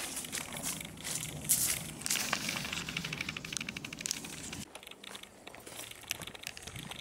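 Leaves and twigs of dense shrubs rustling and crackling as they brush past on an overgrown trail, in many short irregular crackles. It dies down to a quieter rustle about two-thirds of the way through.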